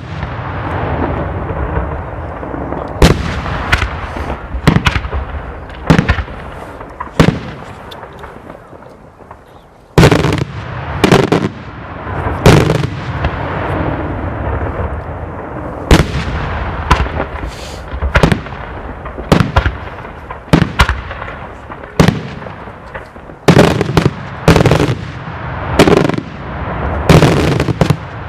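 Daylight fireworks display: some twenty loud, sharp shell bangs at irregular intervals over a continuous rumble and crackle. The din thins for a couple of seconds, then a heavy bang about ten seconds in is followed by bangs coming thicker and faster.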